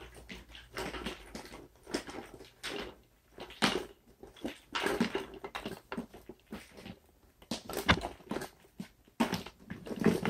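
Tiger marionette's feet knocking and scuffing on a hard workshop floor as it is walked, irregular taps and clatter with one sharp click about eight seconds in.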